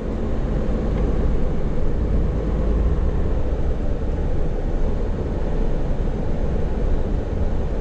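Steady low diesel rumble of a Hino heavy truck, heard from inside its cab.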